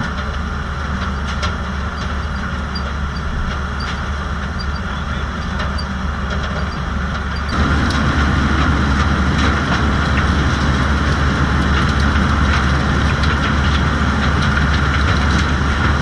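Tractor-drawn potato harvester running: a steady engine drone under the constant rattle of the chain conveyors and potatoes clattering as they tumble. About halfway through it gets suddenly louder, with the conveyor rattle close up.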